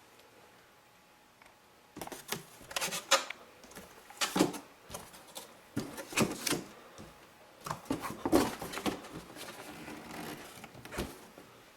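Irregular handling noises, a string of short clicks, knocks and rustles starting about two seconds in, as parts are moved and fitted by hand. No motor is running.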